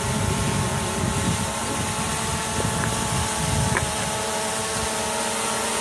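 Quadcopter drone hovering overhead, its four propellers and motors buzzing as several steady whining tones with slight shifts in pitch, over an uneven low rumble.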